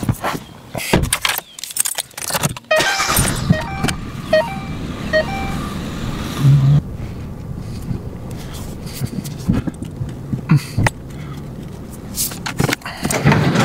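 The driver gets into a 2011 Ford Fiesta with door and key clatter, and its four-cylinder engine cranks and starts about three seconds in. A few short electronic chime beeps follow, then the engine idles steadily with occasional knocks.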